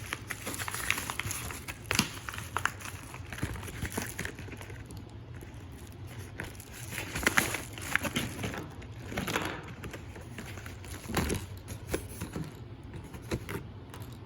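Packaging being handled: irregular crinkling and rustling with scattered small clicks and taps.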